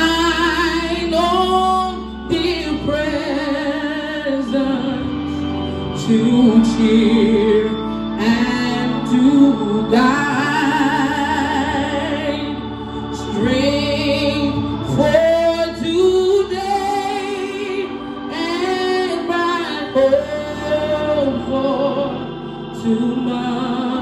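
A woman singing a gospel solo into a microphone, her voice sliding and bending through long held notes over steady, held accompaniment chords.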